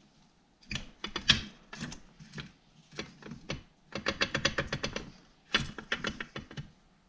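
Several bursts of rapid metallic clicking and rattling from hand work on the hardware at the rear end of a snowmobile's rear-suspension rail. The longest burst, about four seconds in, is an even run of about a dozen clicks a second.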